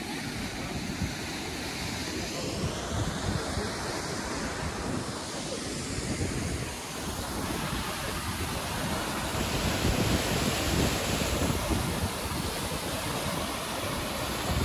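Mountain waterfall rushing steadily between snowbanks, with wind gusting on the microphone.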